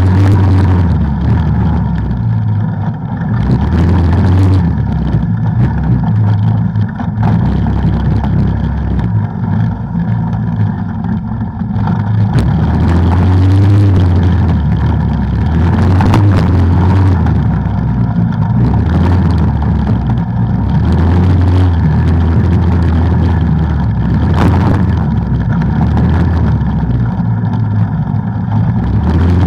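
Off-road vehicle engine running on the trail under changing throttle, its pitch rising and falling as it revs up and eases off. A few sharp knocks or clatters come through during the ride.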